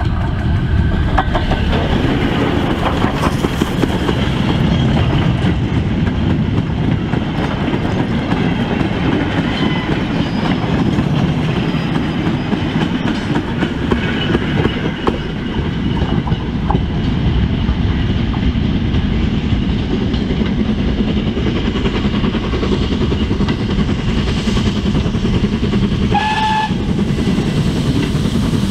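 Steam-hauled train running along the track, with a steady heavy rumble and wheels clicking over the rails. Near the end a short, single whistle sounds.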